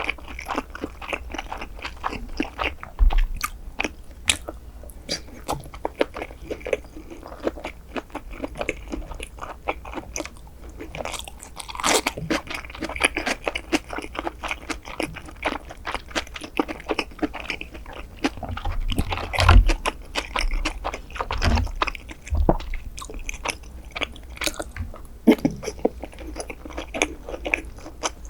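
Close-miked chewing and biting of sushi: a dense run of small wet mouth clicks and smacks, with a few louder bites along the way.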